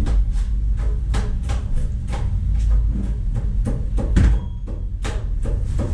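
Commercial kitchen clatter: irregular clinks and knocks of pans and utensils over a steady low rumble. A heavier thump about four seconds in is an under-counter cabinet door being shut.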